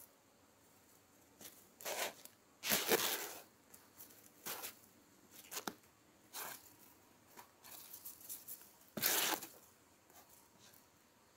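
Sneaker soles scuffing and shifting on a wooden beam: a series of irregular scrapes and rustles, loudest about three seconds in and again about nine seconds in.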